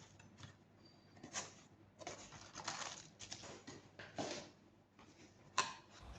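Faint rustling and handling noises with a few light taps, of items being lifted out of their packaging, with a sharper click near the end.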